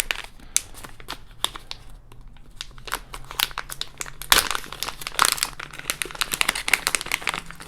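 Product packaging being handled and opened, with scattered crinkles at first, then dense crinkling and crackling from about three seconds in as it is worked open.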